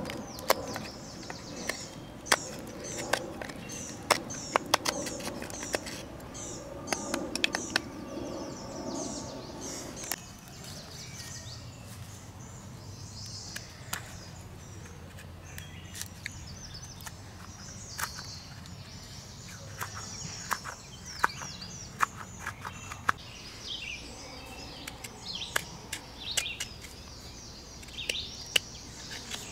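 Small birds chirping repeatedly, with irregular sharp clicks and taps scattered throughout, a few of them louder than the rest.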